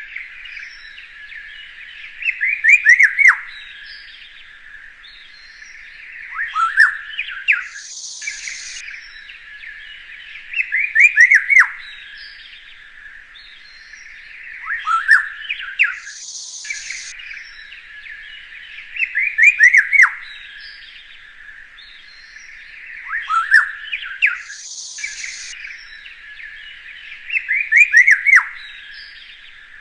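Birds chirping in a steady chorus, with a louder sweeping song phrase about every four seconds and a brief high hiss about every eight seconds.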